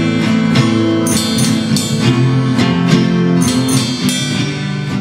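Live student band playing an instrumental ending: many acoustic guitars strumming chords together with electric guitar and a drum kit keeping a steady beat, with no singing.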